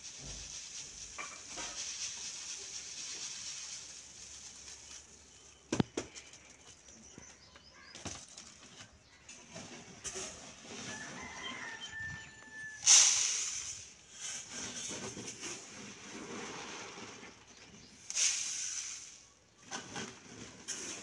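Wheat grain pouring from a shaken winnowing tray onto a cloth, a hissing, rattling rush that comes and goes as the grain is cleaned by winnowing. A single sharp knock comes near a quarter of the way through, and two louder rushes come in the second half.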